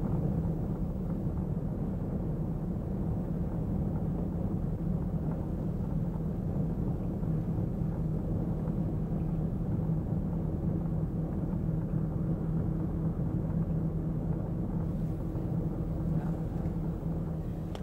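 Vintage sedan driving, its engine and road noise heard as a steady low rumble from inside the cabin.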